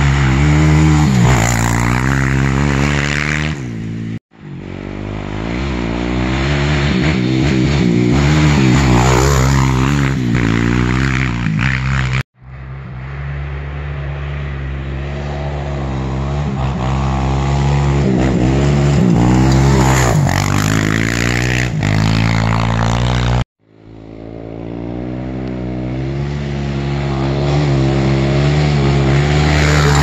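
2010 Suzuki LT-R450 quad's 450 cc single-cylinder four-stroke engine, exhaust baffle removed, revving hard and climbing and dropping in pitch as the rider accelerates, shifts and backs off. The sound breaks off abruptly three times where edited clips are joined.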